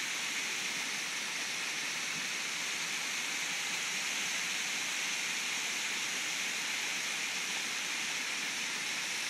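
Waterfall pouring over a rock ledge: a steady, hissing rush of falling water at an even level.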